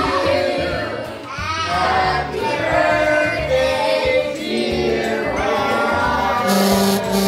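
Several voices singing together over music.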